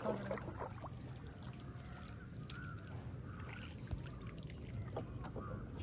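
Faint water sounds and a low steady outdoor rumble, with a few soft clicks.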